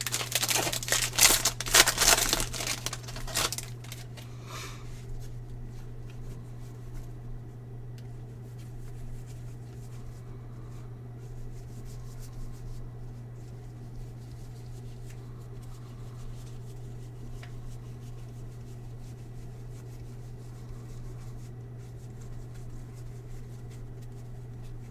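Plastic wrapper of a baseball card pack crinkling and tearing open for about three and a half seconds. After that only a low steady hum remains, with a few faint rustles.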